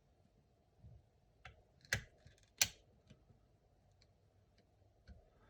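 A few light plastic-and-metal clicks from a DDR4 laptop RAM stick being fitted and seated into its memory slot. The two sharpest clicks come about two seconds in, a little under a second apart, with a few faint ticks around them.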